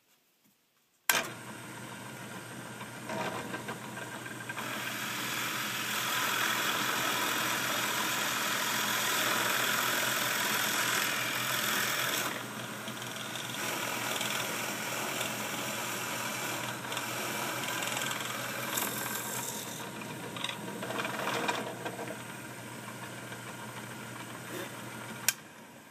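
Benchtop drill press switched on about a second in, its motor running steadily while a Forstner bit bores a hole into a wood block, the cutting noise loudest over the first several seconds. It is switched off near the end with a sharp click.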